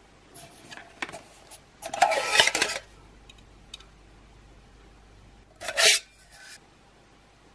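Nested titanium mugs, a Snow Peak 220 ml double-wall and a Keith 600 ml, being pulled apart: metal scraping and rubbing against metal, loudest about two seconds in and again briefly near the end.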